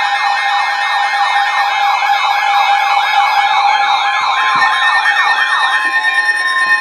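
Electronic alert siren sweeping up and down about twice a second over a steady tone. Near the end the sweeping stops and a steady alert tone takes over, the kind used to announce an emergency weather warning.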